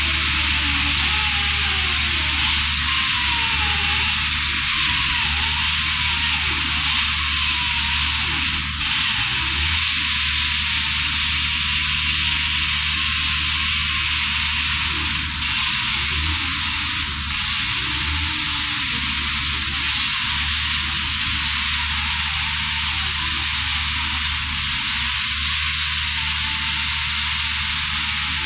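Pneumatic chainsaw running steadily under load as its chain cuts down through a speckled masonry block, a loud, continuous hiss.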